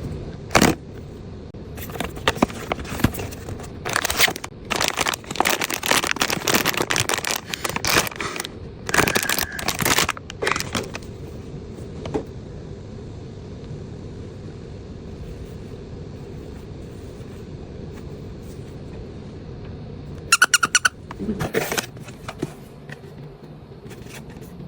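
Blind-box packaging crinkling and rustling as it is handled and opened, in dense crackly bursts for about the first ten seconds, then a steady low hum. A short high-pitched sound comes about twenty seconds in.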